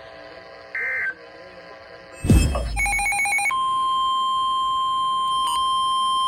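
Emergency Alert System data tones on NOAA Weather Radio: the last short end-of-message burst, then a sharp click and a brief warbling data burst. About three and a half seconds in, the steady 1050 Hz weather-radio alert tone begins and holds, signalling the severe thunderstorm warning that follows.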